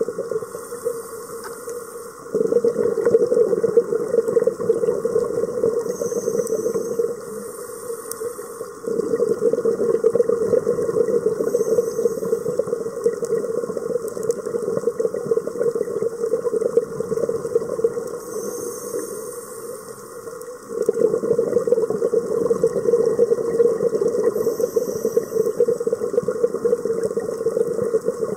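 A scuba diver breathing through a regulator, heard underwater: long stretches of exhaled bubbles, broken every few seconds by short hissing inhalations and brief quieter pauses.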